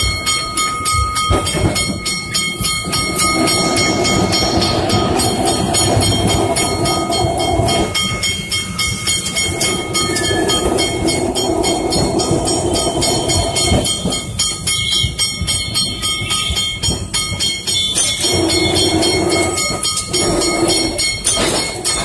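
Old Kolkata street tram running, heard from inside the car: a loud, continuous rattling and clattering of the car body and its wheels on the rails, with a hum that comes and goes in stretches.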